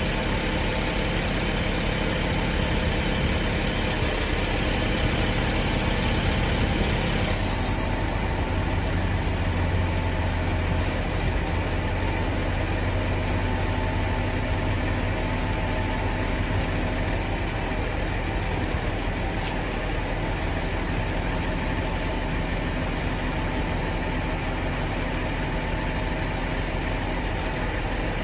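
Car transporter truck's diesel engine running steadily while its hydraulics move a loading deck. A short hiss of air about seven seconds in, after which a deeper hum swells for a few seconds.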